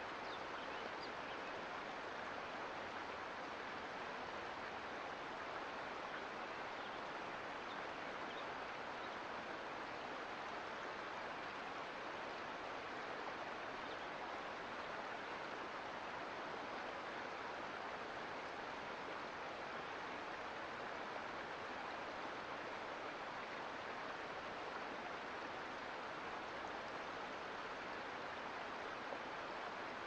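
Mountain creek flowing over rocks: a steady, even rush of water.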